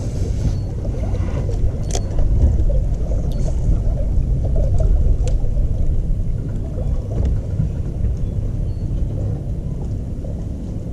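Loud, uneven low rumble of wind and choppy water around a fishing boat, with a few light clicks about two and three seconds in.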